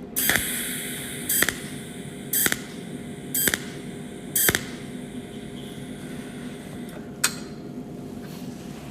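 Cold welding machine firing pulsed arc spot welds with no filler wire: a short sharp zap about once a second, five in a row, then two more spaced further apart, over a steady low hum.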